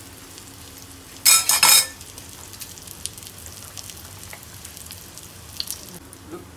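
An egg omelet frying in oil in a cast iron pan on a high flame, with a steady sizzle. About a second in there is a short, loud burst of sizzling and scraping as the steel spatula flips the omelet, and a few light ticks follow.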